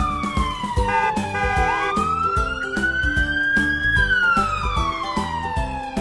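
Electronic siren wailing slowly up and down, each sweep about two seconds, over children's background music with a steady beat.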